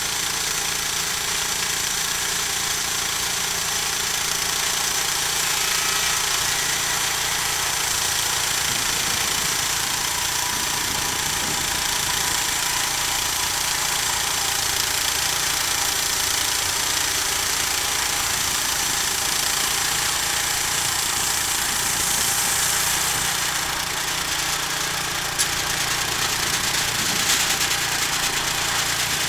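Homemade engine-driven sawmill running steadily and loudly while cutting a log, the engine's drone under the saw's noise. A single sharp click about 25 seconds in.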